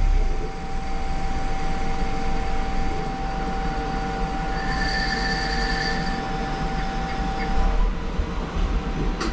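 DN Solutions Puma TT2100 CNC lathe face-grooving a brass part: steady machine whir and cutting noise with a high, even whine that stops about eight seconds in. This is a finishing pass run at reduced spindle speed to clean up chatter at the bottom of the face groove.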